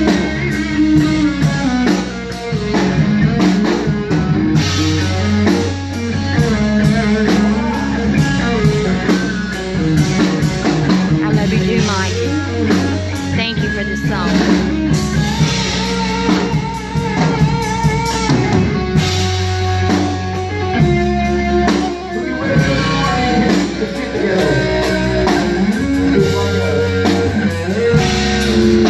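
A rock band playing a song: guitar over bass and a drum kit.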